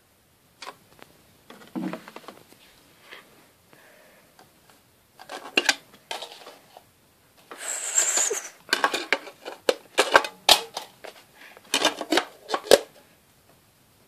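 Plastic clicks, taps and rattles of hands working a CD stereo's top-loading disc compartment and a CD. About halfway through there is a short rushing whir with a high falling whine, and near the end a quick run of sharp clicks.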